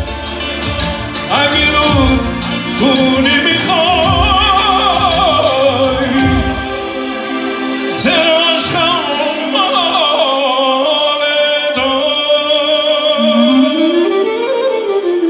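Live band music: clarinet and electric guitar carrying a melody with wide vibrato, over a regular drum beat that drops out about six seconds in.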